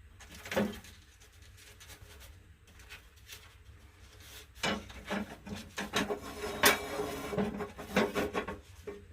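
Irregular rubbing and scraping of material being handled: one scrape about half a second in, then a busy run of scraping strokes from about halfway through.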